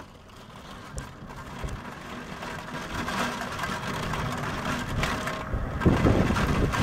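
Heavy rain and gusting wind in a thunderstorm, steadily growing louder, with wind buffeting the microphone in the last second or so.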